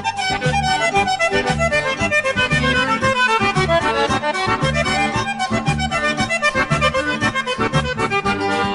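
Background music with a steady bass rhythm.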